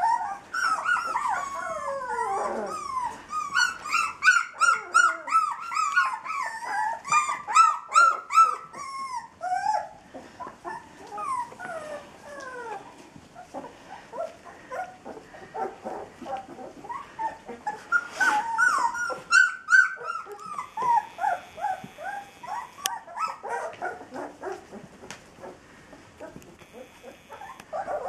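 A litter of three-week-old puppies whimpering, yipping and squealing, with many short high calls overlapping. The calls are thickest through the first ten seconds and again around twenty seconds in, and sparser in between.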